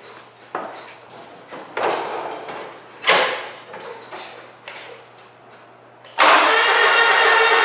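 A few knocks and rustles as someone climbs onto and settles in the seat of a Scag Tiger Cub zero-turn mower. About six seconds in, the electric starter begins cranking the cold engine with a loud, steady whine, and the engine does not catch: the battery is too weak to start it.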